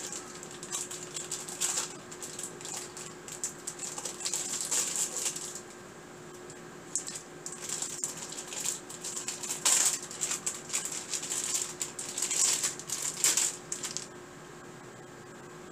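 Plastic wrapper of a package of mozzarella cheese slices crinkling in the hands as it is torn open and the slices are peeled out, in irregular rustles that stop a little before the end. A faint steady hum runs underneath.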